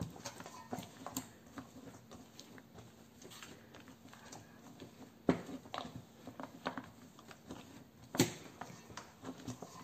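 A small hand pestle mashing soft soap paste in a stainless steel bowl: irregular squishy pats and light knocks, with two louder knocks about five and about eight seconds in.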